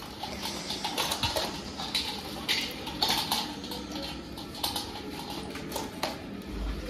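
Rustling of a plastic sugar sack and scraping with light clinks as sugar is poured and handled into a steel vessel, in many small irregular knocks.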